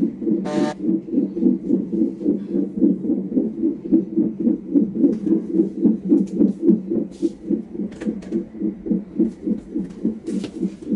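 Electronic fetal heart monitor's Doppler playing the baby's heartbeat during labour: a fast, even pulsing that keeps on, with a few short clicks on top.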